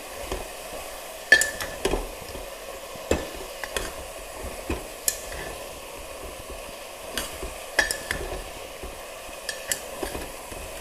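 Sliced onions sizzling in hot oil in a pressure-cooker pot, softening as they are stirred. The spatula knocks and scrapes against the metal pot every second or so, with the sharpest clicks about a second in and near eight seconds.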